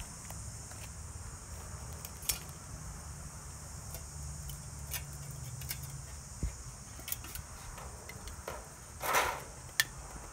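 Light clicks and knocks of metal baking-pan molds being handled on asphalt, with a louder short scrape about nine seconds in. A steady high insect drone runs behind.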